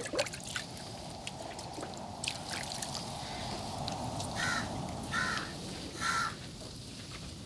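A crow cawing three times, less than a second apart, over a faint steady hiss, with a single sharp knock right at the start.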